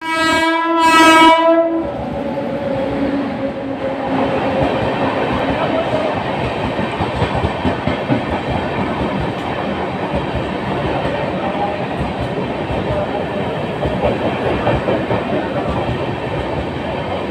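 An Indian Railways express train, the Goa Express, runs through a station at full speed. Its locomotive horn sounds for about the first two seconds, then gives way to the steady rushing roar and fast wheel clatter of coaches passing close by.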